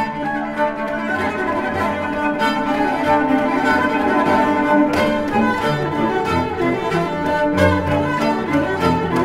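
Background music played by bowed strings, cello and violins, in held notes that change every second or so.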